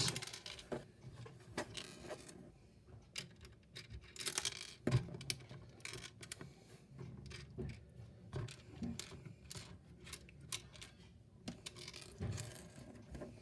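Plastic Mega Bloks pieces clicking and tapping as a built playset is handled and its parts moved: light, irregular knocks and rattles.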